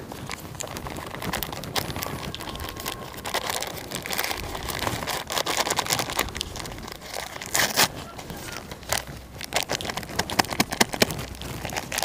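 Henna powder packet crinkling and crackling as it is crumpled, squeezed and shaken empty into a bowl, with sharper crackles in the second half.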